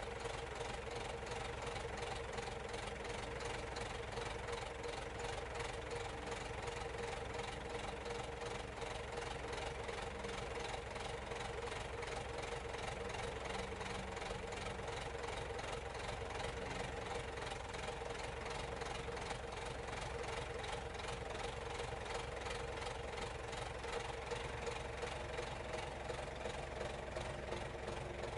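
Case 780 backhoe loader's four-cylinder Case diesel engine idling steadily, an even, unchanging running sound.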